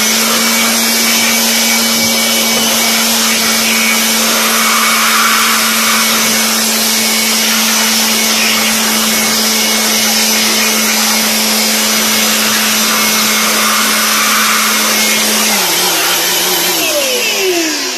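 Electric handheld blower running at full speed, a steady motor hum over rushing air, blowing dust out of an open amplifier chassis. Its pitch drops a little near the end, and then it winds down as it is switched off.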